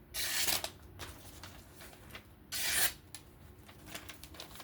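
Two short rasping strokes, about two and a half seconds apart, from a knife being handled or drawn across something while its sharpened edge is shown.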